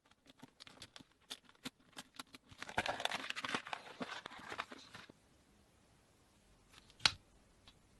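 Slime being handled by hand: a run of quick small clicks and pops, then about two and a half seconds of dense crackling, with one sharp click near the end.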